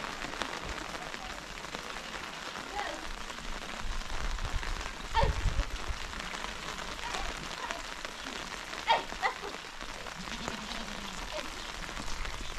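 Steady rain falling and pattering on surfaces, with a couple of brief louder sounds about five and nine seconds in.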